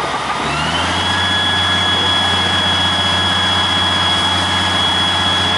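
Amdac Carmichael Cobra 2 airport crash tender's engine revving up about half a second in and then holding high, steady revs to drive the fire pump feeding the boom nozzle. A high whine rises with it and holds steady.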